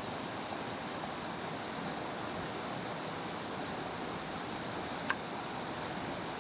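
Steady rushing outdoor ambience, with a single sharp tap of a kitchen knife on a wooden cutting board while an onion is sliced, about five seconds in.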